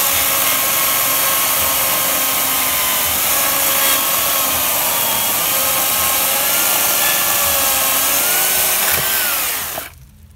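Makita UC4041A 1800 W electric chainsaw cutting through a thick log under load, its motor pitch wavering. Near the end the pitch sags, then the saw stops suddenly as the cut goes through.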